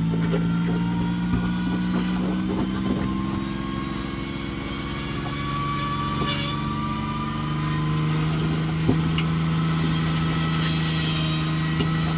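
Third-generation Toyota 4Runner's engine running at low revs under load as the truck crawls up a rock ledge. The revs ease off about a third of the way through and pick back up about two-thirds through, with a couple of sharp knocks.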